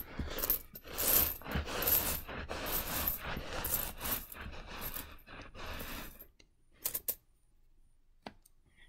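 Loose pennies shuffled and pushed around by hand, clinking and scraping against each other for about six seconds, then a few scattered clicks.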